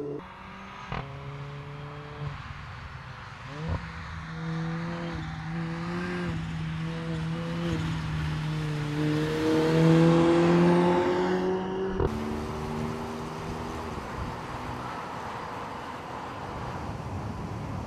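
Mercedes-Benz CLA 45 AMG's turbocharged 2.0-litre four-cylinder engine accelerating, its pitch climbing and dropping back in steps as it shifts up through the gears, swelling as the car passes about ten seconds in. The sound changes abruptly a few times between shots.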